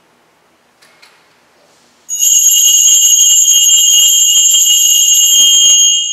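Altar bells (Sanctus bells) shaken in a rapid, continuous jingle for about four seconds, starting about two seconds in and then dying away. They are rung as the priest genuflects after the consecration of the chalice at Mass. Two faint clicks come about a second in.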